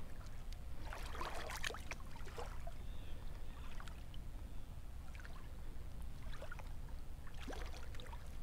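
Water splashing and sloshing as a released blue catfish swims off at the surface, with bursts of splashing about a second in and again near the end.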